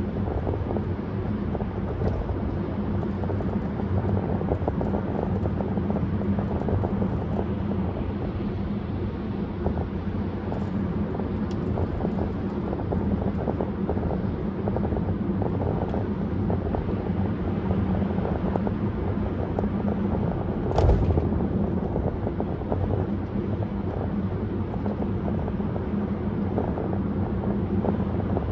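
Steady road and engine noise of a car driving at highway speed, heard from inside the car, with low droning tyre rumble. A single brief thump comes about three quarters of the way through.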